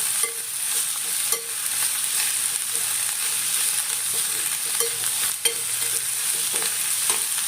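Sambharo vegetables sizzling in hot tempered oil in a kadai while being stirred: a steady frying hiss with a few sharp clicks now and then.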